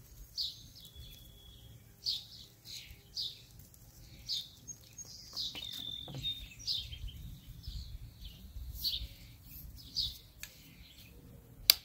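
Wild birds chirping and calling outdoors, short high notes about once or twice a second, some sliding down in pitch, over a faint low outdoor rumble. A single sharp click sounds near the end.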